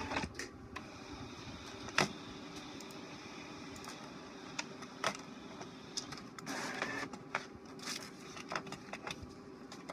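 HP Officejet 4500 inkjet all-in-one printer printing: a steady mechanical whir broken by sharp clicks from the print and paper-feed mechanism, the loudest about two seconds in, with a noisier stretch of feeding a little past the middle.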